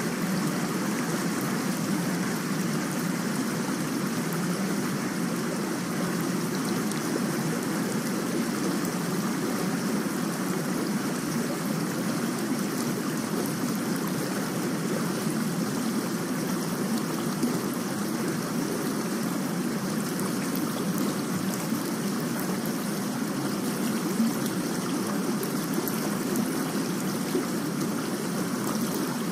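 Recorded rain: a steady, even wash of water noise that does not change.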